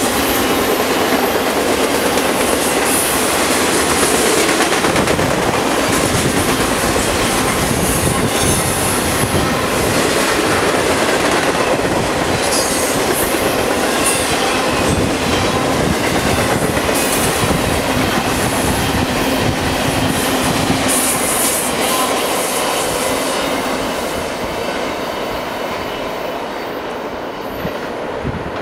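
Double-stack container freight train rolling past close by: a steady rumble and clatter of wheels on rail, with high-pitched wheel squeal coming and going as the cars round the curve. The sound eases off somewhat near the end.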